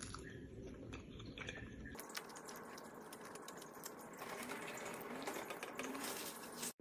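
Close-up mouth sounds of someone chewing a soft oat pancake: a run of small wet clicks and smacks, denser from about two seconds in, with no speech.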